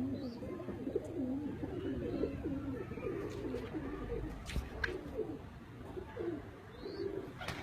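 Domestic pigeons cooing, low wavering coos overlapping one another, with a few sharp clicks.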